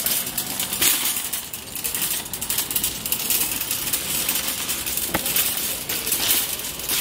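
Empty wire shopping cart rattling steadily as it is pushed over pavement, its metal basket and casters clattering, with one sharper clack about five seconds in.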